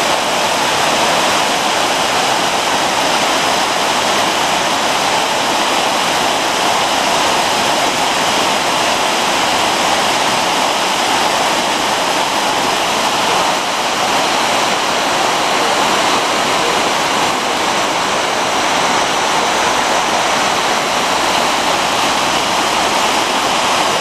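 Waterfall water rushing steadily and loudly, a continuous even roar of falling and splashing water.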